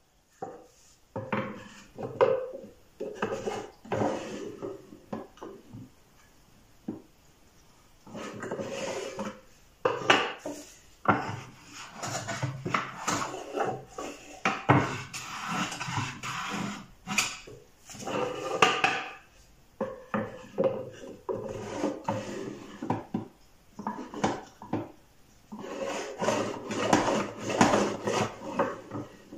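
Wooden hand plane shaving a small wooden drawer in repeated strokes, with knocks of wood on wood. Near the end the drawer slides into its slot in the wooden cabinet.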